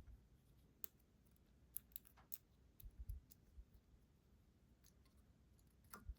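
Faint, scattered small metal clicks and taps, about half a dozen in a few seconds, with a couple of soft low knocks: parts of a lock being handled and worked on during disassembly.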